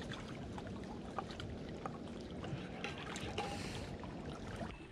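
Water lapping steadily against a mangrove log, with small clinks of a metal spoon stirring a drink in a stainless steel mug.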